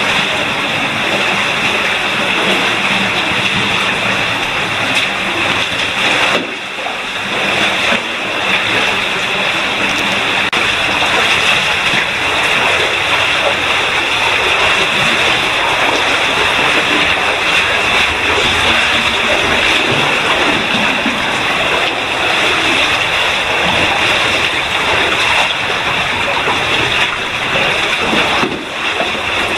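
Falling water in a cave streamway: a loud, steady rush of water and spray, dipping briefly about six seconds in and again near the end.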